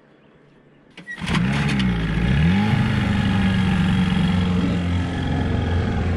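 Small outboard motor on an inflatable dinghy starting: it catches about a second in, its pitch rises and dips, then it settles into a steady idle.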